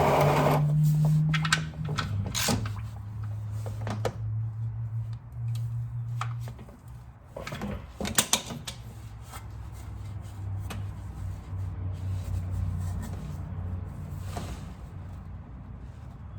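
Scattered light clicks and knocks of hand tools and parts being handled under a car while oil drips are wiped up, over a steady low hum.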